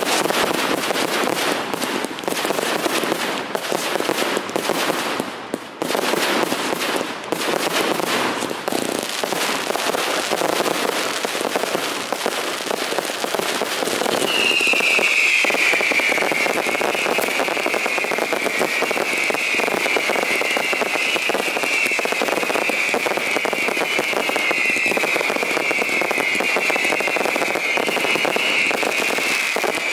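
Fireworks display: a dense run of crackling and bangs from many shells. From about halfway, a shrill whistling tone joins in over the crackle and slides down in pitch again and again, about once a second.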